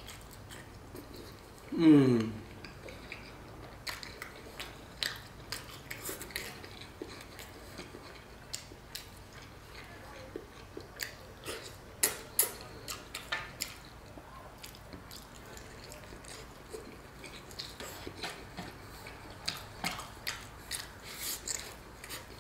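Close-up eating sounds: wet chewing and small mouth clicks, with fingers picking at rice on a steel tray. About two seconds in, a short falling vocal hum, the loudest sound.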